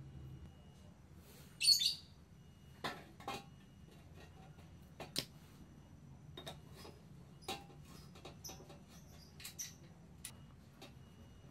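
Scattered small metallic clicks and clinks of pliers working against a brass exhaust baffle seated in the tip of a Honda CB muffler, with one louder, brief metal scrape about two seconds in.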